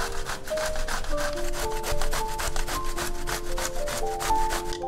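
A zucchini being grated on a stainless steel box grater: quick, even rasping strokes, about four a second.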